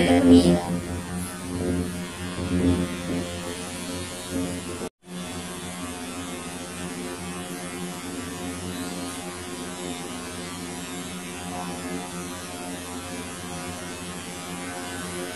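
A steady electrical mains-type hum with evenly spaced overtones, with a few louder bumps in the first few seconds; the sound drops out for a moment about five seconds in, then the hum carries on unchanged.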